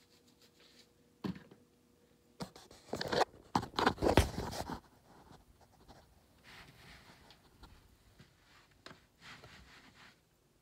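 Rustling and scraping handling noise: a sharp click about a second in, a cluster of louder rubs and scrapes from about two and a half to five seconds in, then softer rustling.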